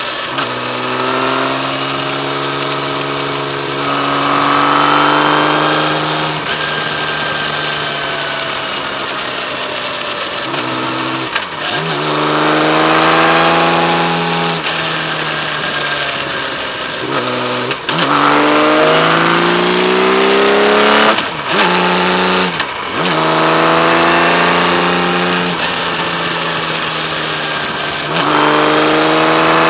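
Kawasaki Z1300's liquid-cooled inline-six engine running under acceleration. Its pitch climbs steadily, then drops sharply and climbs again at each gear change, several times over.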